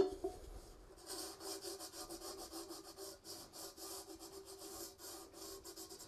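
Cloth rag rubbing a gritty salt-and-lemon-juice paste over a copper tea kettle to lift the tarnish, in quick, faint, repeated strokes that start about a second in. A faint steady hum runs underneath.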